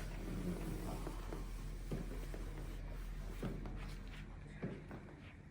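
Soft rustling and a few light clicks of a person shifting on a chiropractic treatment table, over a steady low hum.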